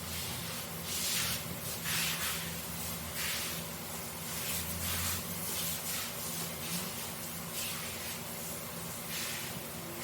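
Scrubbing brush working a wet, foamy carpet: short hissing strokes, roughly one a second, with a steady low hum underneath.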